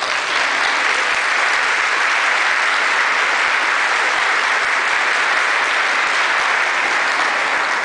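Crowd applauding: many people clapping at a steady, even level.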